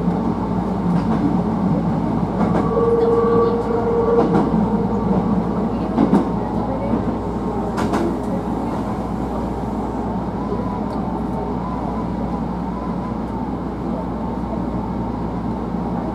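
Hankyu 1000 series electric train running along the track, heard from inside the front car: a steady rumble of wheels on rail. A brief steady whine comes twice in the first few seconds, and a few sharp rail-joint clacks come around the middle.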